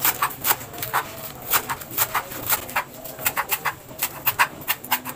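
Kitchen knife slicing shallot greens on a plastic cutting board: a quick, uneven run of crisp taps, about four a second, as the blade hits the board.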